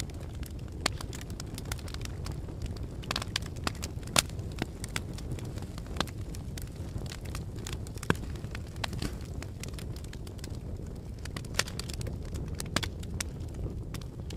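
Fire crackling: a steady low rumble of flames with scattered sharp pops, the loudest about four seconds in and again about eight seconds in.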